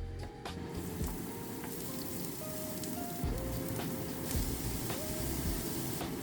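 Background music, a simple melody of held notes, over a steady hiss that starts about a second in.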